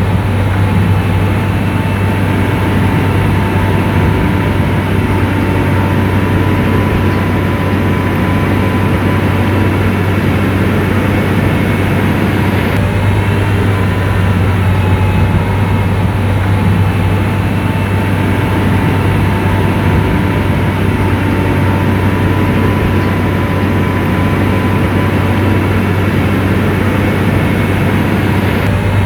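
SDLG motor grader's diesel engine running steadily under load, a loud constant low hum with a faint steady whine above it.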